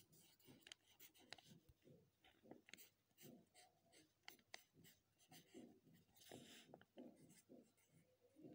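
Faint scratching of a pen writing by hand on a paper page, in many short, irregular strokes.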